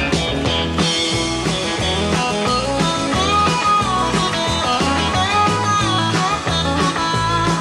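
Country band playing an instrumental break: a lead guitar picks a melody with string bends over a bass line and the rest of the band.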